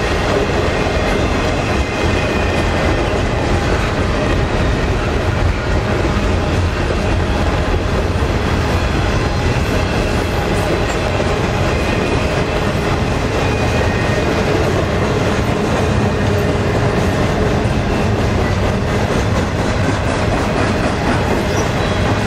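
Double-stack container train's well cars rolling past at close range: a steady, loud rumble and clatter of steel wheels on the rails.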